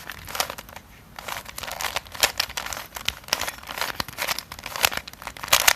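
Plastic Fisher cube, a shape-shifted 3x3 Rubik's cube, being turned through an algorithm: an irregular run of clicks and scraping as its layers are twisted.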